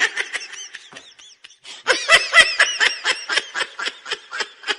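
High-pitched laughter, a rapid run of giggles: a short burst fading out about a second in, then a longer burst of about five to six giggles a second.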